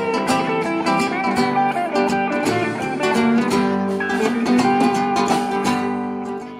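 Live band playing an instrumental passage of a song on acoustic guitar, electric guitar and upright double bass, with a steady plucked beat; the sound dips briefly near the end.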